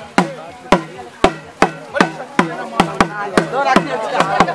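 A drum beaten in a steady rhythm of sharp strokes, about two to three a second. People's voices run underneath and grow louder near the end.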